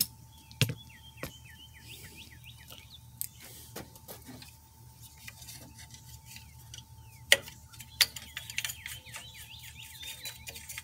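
Sharp metallic clicks and knocks of engine parts being handled under the tractor's hood, a few separate strikes. A small bird sings two bouts of quick falling chirps in the background.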